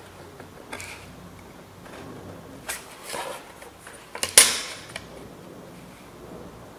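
Steel scriber scratching marking-out lines on aluminium sheet along a steel rule: a few short scraping strokes, the loudest and sharpest about four and a half seconds in.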